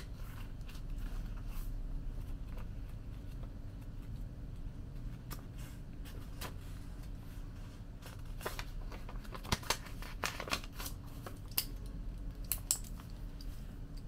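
Scattered light clicks and snips of small objects being handled, over a low steady hum, with a busier run of clicks in the second half.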